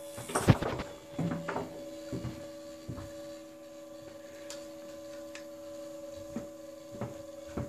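Homemade 3D printer humming steadily, with scattered clicks and knocks over it; the loudest knock comes about half a second in.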